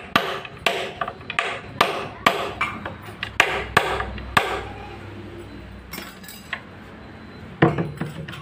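Hammer striking repeatedly, two to three blows a second for about four seconds, then a few scattered knocks.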